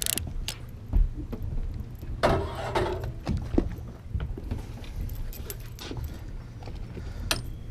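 Low steady hum of the boat's engine, with scattered clicks and rattles of fishing tackle as a small fish is swung up over the rail and unhooked by hand. A louder brief rustle comes about two seconds in.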